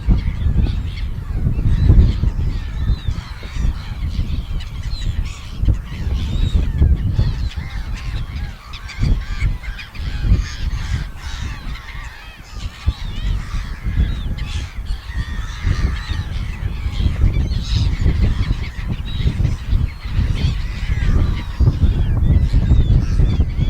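A flock of seagulls calling continuously, with many overlapping short squawks and gliding cries, over a constant low rumble.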